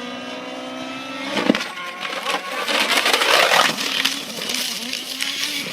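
Radio-controlled helicopter's motor and rotor whining steadily, then a sharp crack about one and a half seconds in and a couple of seconds of clattering and breaking as it crashes. A wavering whine carries on near the end.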